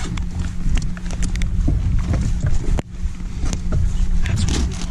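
Scattered sharp ticks of raindrops striking the camera housing and the boat, over a steady low hum.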